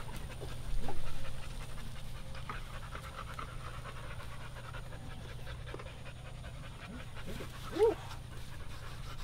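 Dog panting steadily, with a short pitched call rising and falling about eight seconds in.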